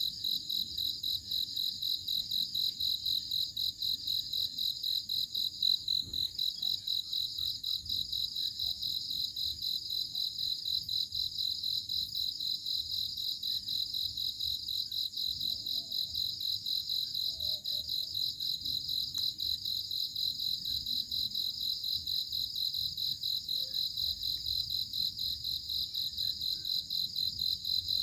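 Crickets chirping steadily: a high, evenly pulsed chirping that keeps on without a break.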